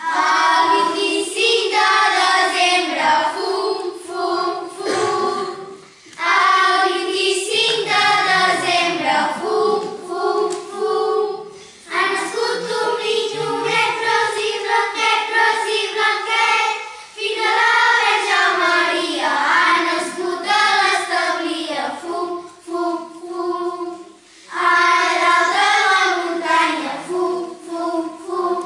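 A group of children singing a song together, in phrases broken by short pauses every few seconds.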